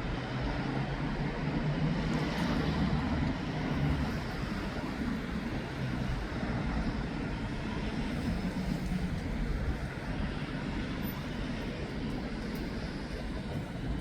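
Steady city traffic noise: a low rumble of vehicles passing on a street.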